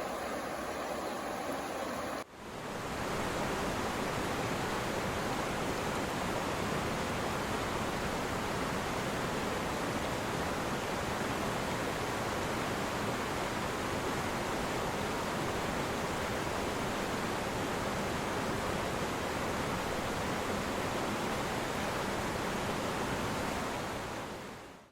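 Merced River water rushing in a steady, dense rush. It cuts to a fuller rush of water about two seconds in and fades out at the end.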